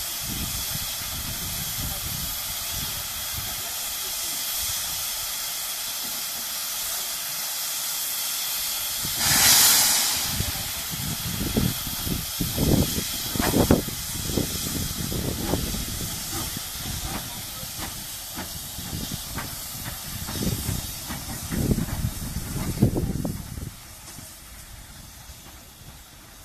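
Hunslet saddle tank steam locomotive hissing steam at a standstill, then a loud blast of steam about ten seconds in as it starts away, followed by uneven exhaust beats as it pulls off, fading near the end.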